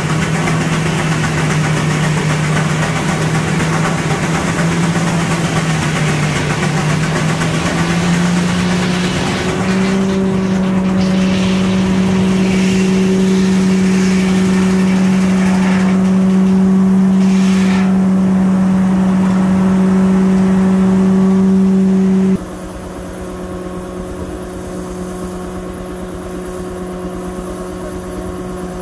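Steam-engine-driven sawmill running: a steady mechanical hum that rises slightly in pitch over the first several seconds and then holds. It drops to a lower level about 22 seconds in.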